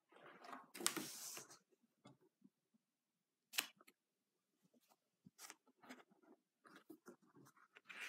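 Pages of a spiral-bound sketchbook being turned and handled: a paper swish lasting about a second and a half at the start, a sharp tap about three and a half seconds in, then light scattered paper rustles and taps.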